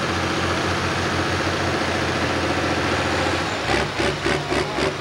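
Farm-stock diesel pulling tractor idling steadily while hooked to the sled. About three and a half seconds in it is throttled up to start its pull, and the note drops lower and heavier with an uneven, pulsing beat.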